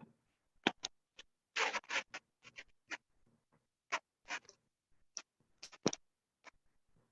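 Writing by hand: a dozen or so short, scratchy strokes at irregular intervals, with brief gaps between them.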